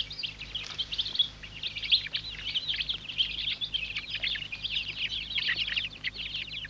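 Domestic chicks peeping: a rapid, overlapping stream of short, high, downward-sliding peeps from a chick cut off from its flock in a maze, calling for the others.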